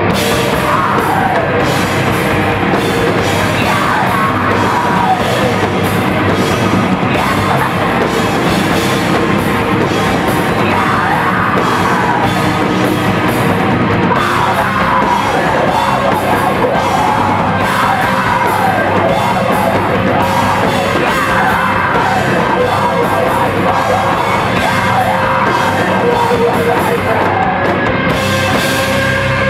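Live crust punk band playing loud and fast, with distorted guitars, pounding drums and crashing cymbals under a screamed, yelled vocal.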